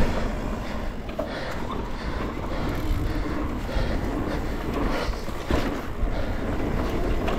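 Pole Voima mountain bike rolling fast down a dirt singletrack: a steady rush of tyres on dirt and air over the helmet camera's microphone, with sharp knocks and rattles of the bike over bumps.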